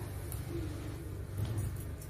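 A steady low hum or rumble, with faint brief rustles of cotton fabric being smoothed and handled.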